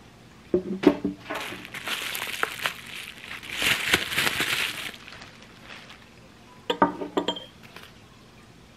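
Porcelain teapot and teacups clinking against each other and the table about half a second in and again near 7 s. In between, plastic bubble wrap rustles and crinkles as a cup is unwrapped, loudest around 4 s.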